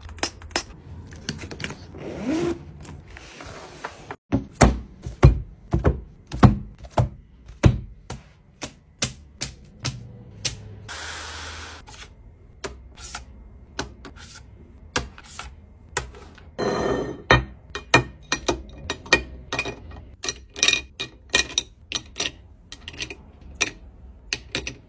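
Rapid series of sharp plastic clicks and taps as highlighters, pens and a small plastic spray bottle are handled and set down on a desk, with a couple of short hisses.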